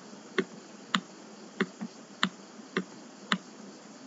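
Computer mouse clicking: seven short, sharp clicks at uneven intervals, roughly half a second apart, over faint background hiss.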